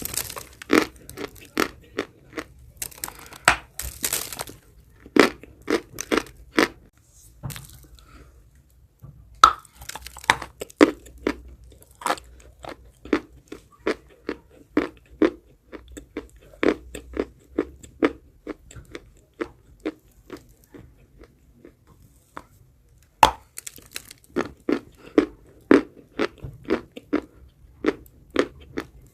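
A person biting and chewing pieces of chalk: sharp, dry crunches followed by runs of quick rhythmic chewing, with a pause of a few seconds about two-thirds of the way through.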